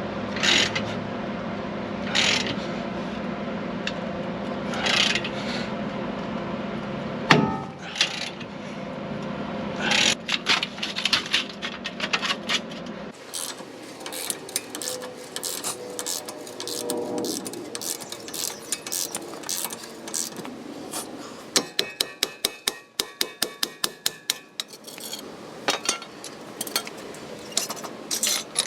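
Metal tools knocking and clinking against a steel truck wheel-hub assembly as it is worked off. A steady hum with a few sharp knocks in the first half gives way to a long run of quick metallic clicks and clinks, at one point an even rattle of about five strikes a second.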